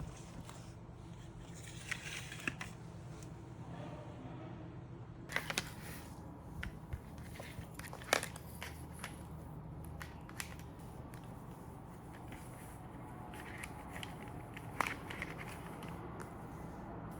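Faint low hum with scattered light clicks and rustles of small objects being handled, a few sharper taps among them.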